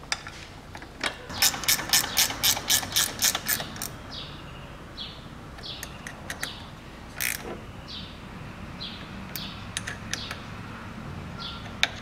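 Ratchet wrench clicking quickly and evenly, about four to five clicks a second for a couple of seconds starting about a second in, as the mounting bolts of a hydraulic valve block are run in. A few scattered metallic clicks and taps follow.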